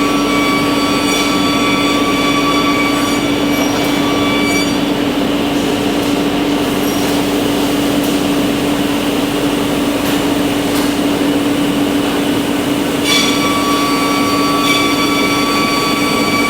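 Four-spindle CNC machine running, a steady loud hum with high-pitched spindle whine. The whine fades out about a third of the way in and returns with a sharp click near the end.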